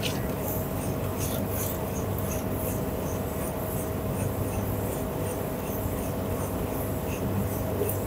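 Siemens condenser tumble dryer running with its condensate drain pump working normally: a steady hum with a faint, constant whine.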